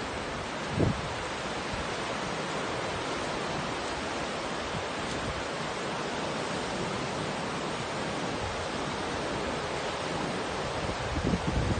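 Small surf breaking and washing up a sandy beach, a steady hiss of waves. There is a brief low thump about a second in and low rumbling near the end.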